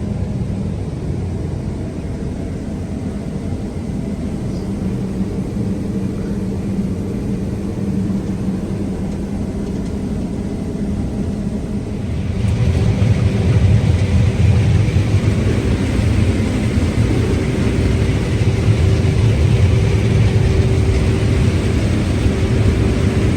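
Combine harvester running steadily at work, a continuous machine drone. About halfway through, it turns louder, with a heavier low hum and more hiss on top.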